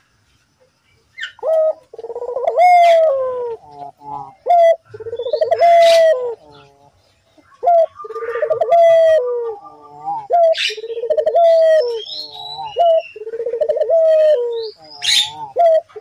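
A puter dove, a pale collared dove, cooing over and over from about a second and a half in: loud, drawn-out coos, each about a second long and dropping in pitch at the end, with shorter coo notes between them. This is the active cooing that keepers call gacor. Small birds chirp faintly in the background now and then.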